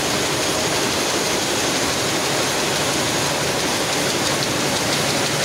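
Many Picanol GTX rapier looms running together on a weaving floor, a loud, dense and steady mechanical din with no break.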